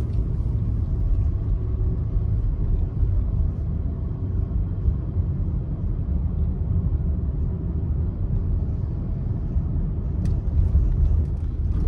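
Car driving at a steady speed, heard from inside the cabin as a constant low rumble of road and engine noise.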